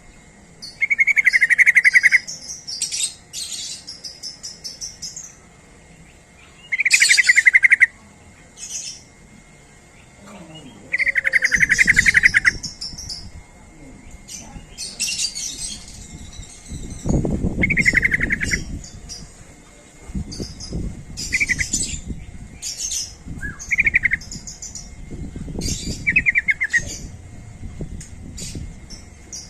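Sooty-headed bulbul (trucukan) calling: short, loud bubbling trilled phrases repeated every few seconds, with quicker, higher chirps in between.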